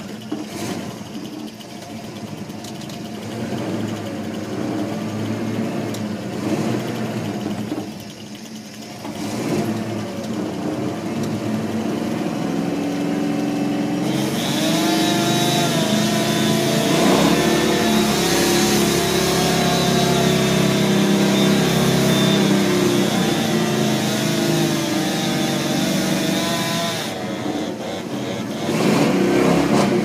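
Two-stroke chainsaw felling a tall conifer. The engine runs unevenly at lower throttle at first, then holds high revs cutting through the trunk from about halfway in, and eases off a few seconds before the end. A brief louder burst follows as the tree starts to go over.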